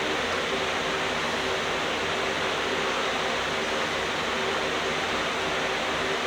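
Steady background hiss with a faint, even hum underneath and no tool or handling sounds.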